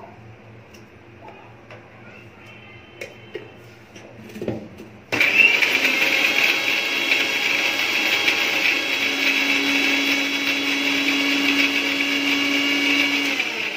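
Electric mixer grinder with a steel jar grinding coconut, garlic and ginger into a paste. A few faint clicks come first, then the motor starts suddenly about five seconds in and runs steadily and loudly.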